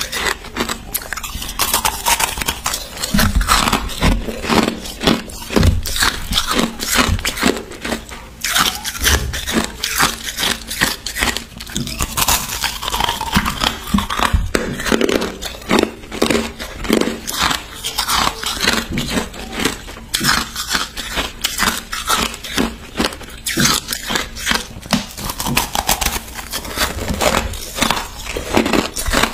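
Hard ice being bitten and chewed: a dense, continuous run of sharp cracks and crunches.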